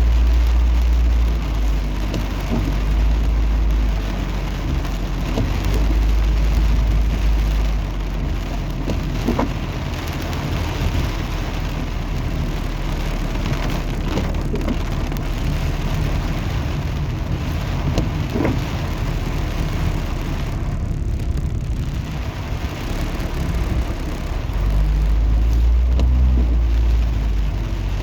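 Heavy rain in high wind: a steady hiss of rain with scattered drops ticking, and wind buffeting the microphone in a low rumble that is strongest at the start and again near the end.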